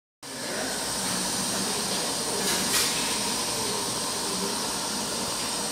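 2016 Ford Fiesta ST's turbocharged 1.6-litre four-cylinder, Stage 3 tuned, idling through an FSWERKS aftermarket exhaust, heard right at the dual tips as a steady hissing exhaust note with a brief louder swell a little over halfway through.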